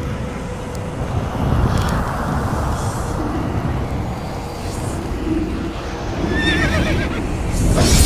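Cinematic sound effects for an animated monster intro: a deep, steady rumble, with a wavering high shriek like a creature's cry near the end and a sudden burst right at the close.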